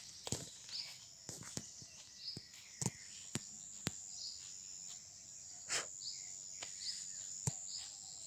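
Nature sounds: a steady high insect drone with repeated short bird chirps over it, and scattered sharp clicks.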